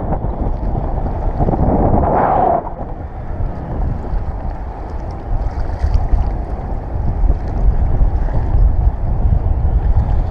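Strong wind buffeting the microphone, a low rumble over choppy sea water around a kayak. A steady whirring rides on top for the first two and a half seconds and then stops.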